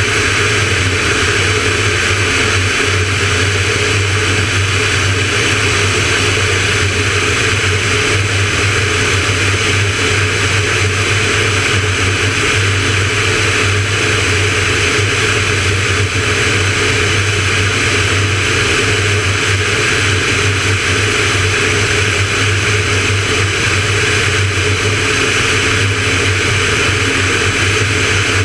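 Van's RV-9A's piston engine and propeller running at a steady cruise setting: an even, unchanging drone.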